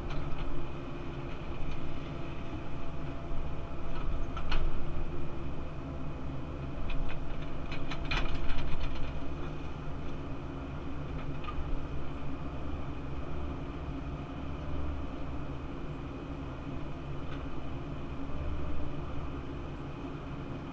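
Cat 308CR mini excavator running under load, heard from inside the cab: a steady diesel rumble with a thin steady whine above it, and a few clanks as the bucket and boom work, the loudest about eight seconds in.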